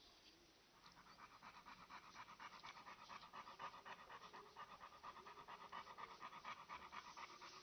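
A dog panting quietly in fast, even breaths, softer for the first second and then steady; it fits the nursing mother panting while her newborn puppies feed.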